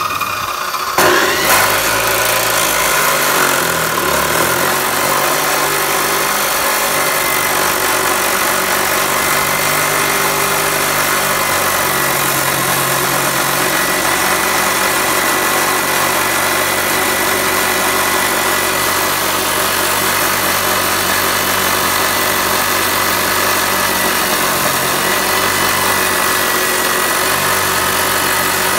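Abrasive chop saw with a 14-inch Saitej cutoff wheel grinding through a metal bar in one long continuous cut. The wheel bites in with a knock about a second in, then a steady dense grinding over the motor's running sound.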